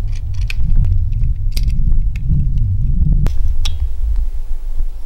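Scattered clicks and light knocks of a Silky BigBoy 2000 folding pruning saw and its blade being handled, with one sharp click about three seconds in, over a steady low rumble.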